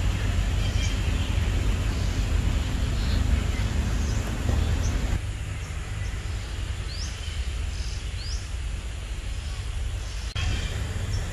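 Outdoor ambience: a steady low rumble with small birds giving short, rising chirps now and then, a few of them in the second half.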